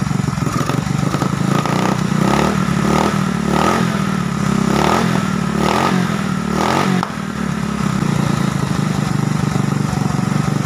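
Rusi Venus scooter's GY6 engine running after its hard-start wiring fix. It is revved in about eight quick blips, the throttle worked by hand at the carburettor because no throttle cable is fitted, then settles back to a steady idle about seven seconds in.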